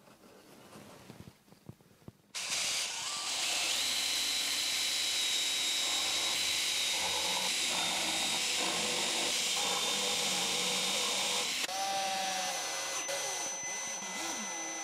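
A power tool starts up suddenly about two seconds in and runs steadily with a thin high whine. Near the end the sound drops briefly and goes on with a wavering, changing pitch.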